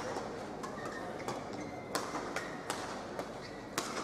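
Badminton rally: sharp hits of rackets on a shuttlecock, about five in four seconds, with short squeaks of shoes on the court and a hall murmur behind.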